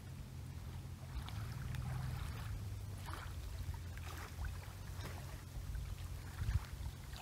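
Wind buffeting the microphone in a steady low rumble, over small waves lapping and splashing at a lakeshore.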